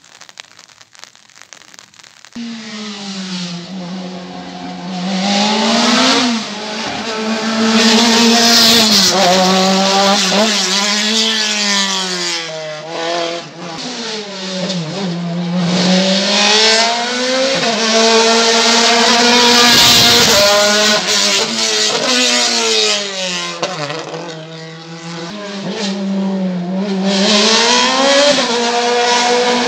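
A race car's engine revving hard as it climbs a slalom course, its pitch rising and falling over and over as it accelerates and backs off between the cone chicanes. It grows louder near the end as the car approaches. Rain hiss on wet ground for about the first two seconds, before the engine comes in.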